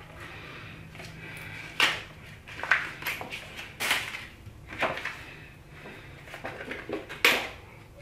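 Scattered clinks and knocks of bike parts being handled during assembly: about six sharp ones spread through, over a low steady hum.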